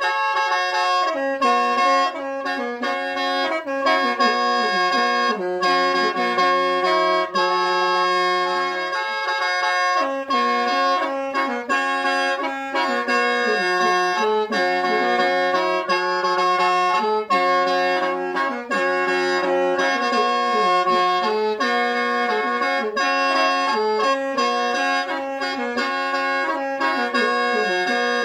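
Khaen, the Lao bamboo free-reed mouth organ, played solo: a quick running melody over steady drone notes held the whole time, with a low note sounding for a few seconds at a time.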